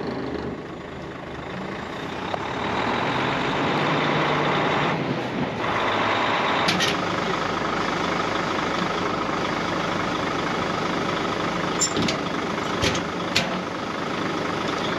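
Farm truck running, with a steady engine and road noise and a few sharp knocks or rattles late on.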